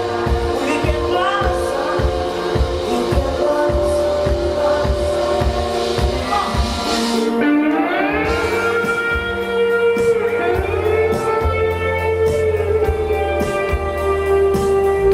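Band music: a song with singing over guitar and a steady drum beat, with a sustained note sliding upward about halfway through.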